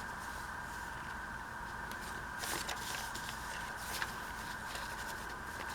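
Paper being handled and folded, a few faint rustles and light taps, over a steady background hum with a constant high tone.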